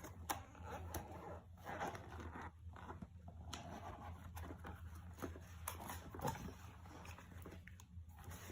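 Cardboard box and packaging being handled and opened: scattered soft rustles, scrapes and small clicks over a faint steady low hum.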